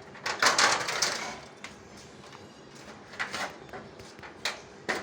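Clattering and scraping of hard objects being handled, loudest for about a second near the start, then a few separate knocks.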